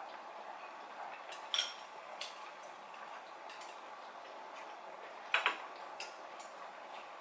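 Eating utensils clinking against dishes: a few sharp clinks, some with a short ring, the loudest about one and a half and five and a half seconds in, over a steady faint hiss.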